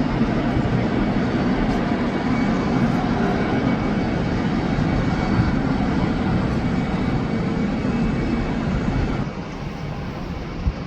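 Steady rumble of a passing airplane's engines, dropping noticeably in level about nine seconds in.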